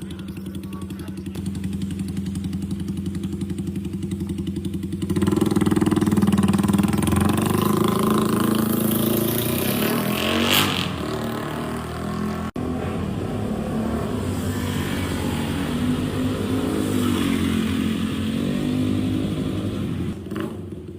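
Suzuki Raider Fi motorcycle's single-cylinder fuel-injected engine idling, then revved from about five seconds in, its note rising and falling. It keeps running with further revs after a brief cut about halfway through.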